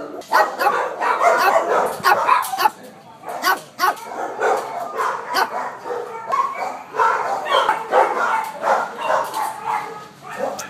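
Many kennelled shelter dogs barking and yipping at once, one bark quickly following another and overlapping.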